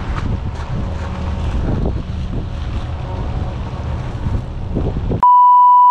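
Strong wind buffeting the microphone, a dense low rumble. About five seconds in, all of it cuts out and a loud, steady high beep sounds for about a second.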